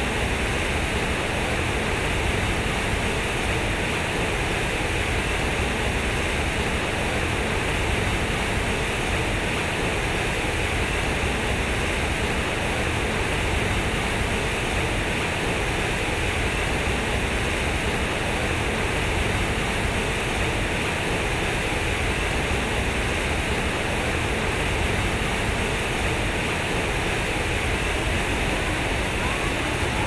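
Fountain water pouring heavily from concrete spouts and crashing into a pool: a steady, unbroken rushing and splashing.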